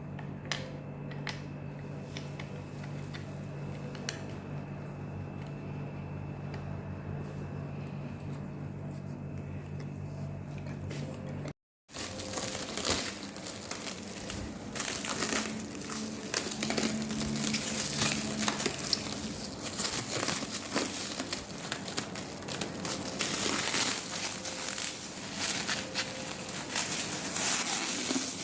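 A steady low hum with a few small clicks, then after a cut about twelve seconds in, plastic packaging crinkling and rustling continuously and louder, as it is handled and pulled open.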